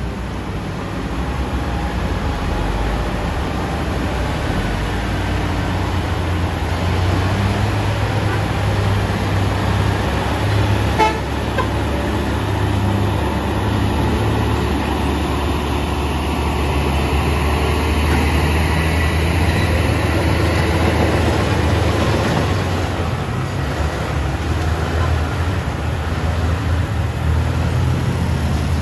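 Heavy trucks' diesel engines running at low speed in a steady low hum, with a brief horn toot about eleven seconds in.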